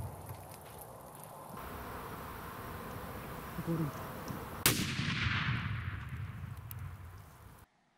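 A Mark II pineapple grenade holding 65 grams of high explosive detonates: one sharp blast about four and a half seconds in, followed by a rolling rumble that dies away over a few seconds. At the start, the rumble of a previous blast is fading out.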